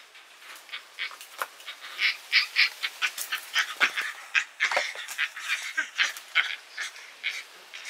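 Young Yucatan black howler monkey yelling in anger: a rapid run of short, high-pitched cries, several a second, loudest in the middle.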